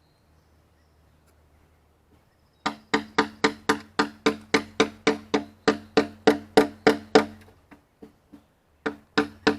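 Rapid, even hammer blows on a wooden pole, about four a second, each knock ringing with a low pitch. They start nearly three seconds in, thin out briefly near the end, then carry on.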